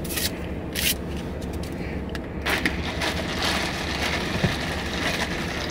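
A plastic straw handled and pushed into the plastic lid of an iced drink cup, with rustling, scraping and a couple of sharp clicks, then the drink is sipped through the straw. A steady low hum runs underneath.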